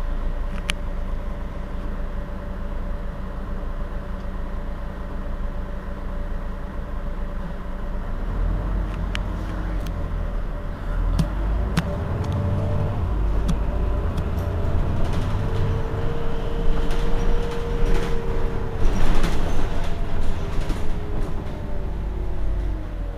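Heuliez GX 327 city bus standing with its engine running at idle. From about eight seconds in the low engine hum grows louder, and whining tones rise, hold steady and fall again, with a few sharp clicks.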